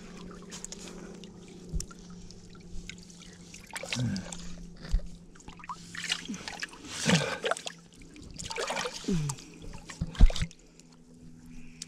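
Shallow river water sloshing and trickling around a person handfishing in it, with three short splashes a few seconds apart.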